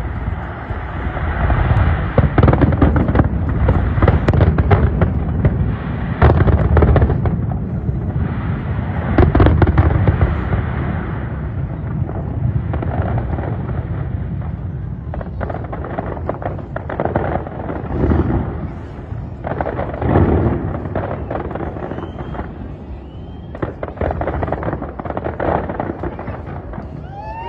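Large aerial fireworks display going off without a break: deep booms of shells bursting, layered with dense crackling and popping. It is heaviest in the first ten seconds or so, then continues a little less intensely.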